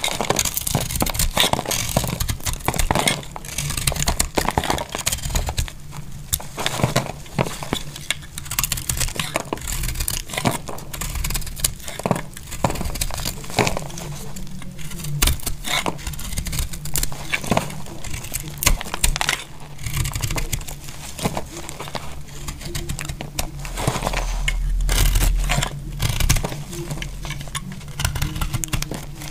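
Dry, brittle soap being shaved and cut with a snap-off utility knife blade, thin plates cracking and crumbling off in a dense run of crisp crackles. There is a brief low rumble near the end.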